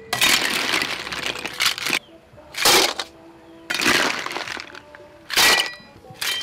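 Boiled sea snail shells rattling and clattering against a perforated metal skimmer as they are scooped out of the pot, with two sharp, loud clatters, a little before halfway and again near the end, as they are tipped into a metal bowl that rings briefly.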